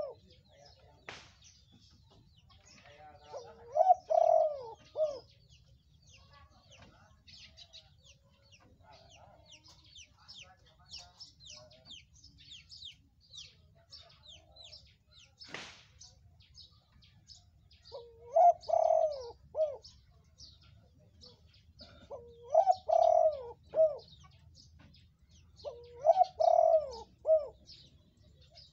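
Spotted dove cooing: four phrases of a few low notes each, each lasting about a second and a half. One comes near the start and three more follow each other in the second half. Faint, thin, high chirps go on throughout, with a sharp click about halfway through.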